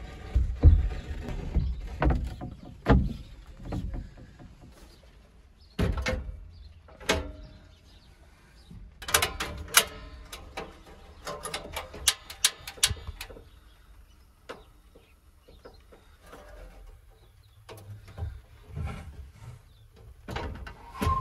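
Handling knocks and clatter as a portable gas heater and a wooden shelf plank are set in place, with several thumps early on and a quick run of sharp clicks and taps in the middle.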